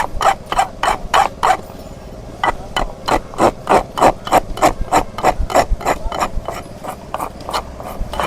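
Rasp filing down a donkey's hoof in quick repeated strokes, about three a second, with a short break about two seconds in.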